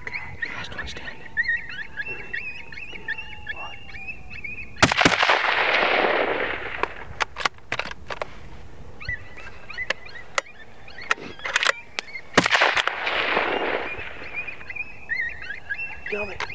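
Two rifle shots about seven and a half seconds apart at coyotes roughly 500 yards off, each a sharp crack that rolls away in a long echo lasting about two seconds. Several short sharp clicks fall between the shots.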